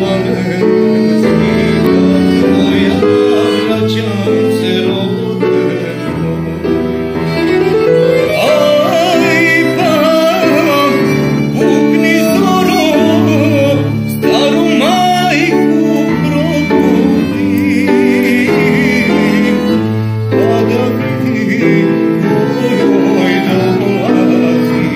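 Live male voice singing a slow, wavering melody, accompanied by violin and keyboard chords.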